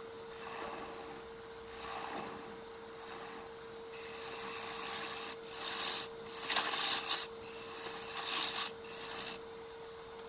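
Woodturning lathe spinning a wooden box blank with a steady hum, while a tool is drawn across the turning wood in about half a dozen irregular strokes, the longer ones over a second.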